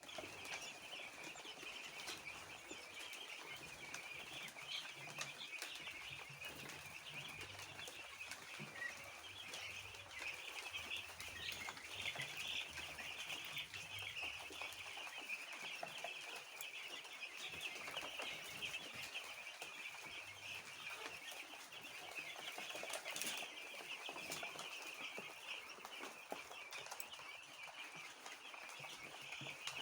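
A large flock of chickens calling all at once: a steady, dense chatter of peeping and clucking.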